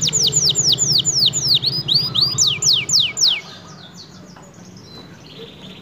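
Canary singing: a fast trill of high, downward-sliding notes that slows to a few notes a second and breaks off about three and a half seconds in, followed by softer scattered chirps.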